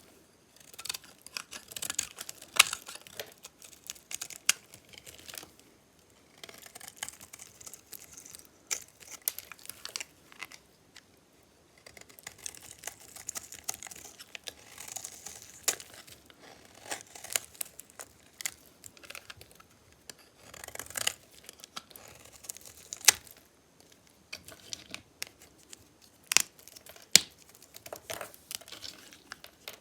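Knife cutting dry bar soap: crisp crackling and scraping broken by irregular sharp snaps.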